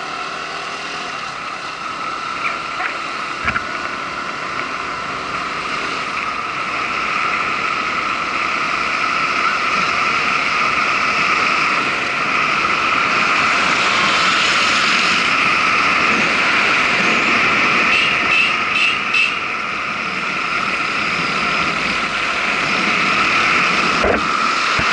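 Motorcycle riding at speed: steady wind rush and engine noise, getting louder over the first ten seconds or so. Four quick high beeps come about three-quarters of the way through.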